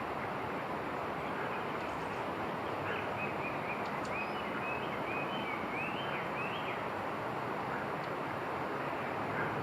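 Steady rushing outdoor background noise, with a bird giving a quick run of short high chirps from about three seconds in until near seven seconds.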